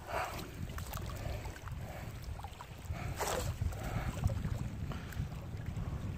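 Wind buffeting the microphone with water splashing and lapping at the surface, with a louder splash right at the start and another about three seconds in.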